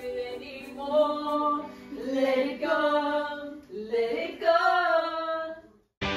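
Female voices singing a slow melody in long held notes, breaking off near the end.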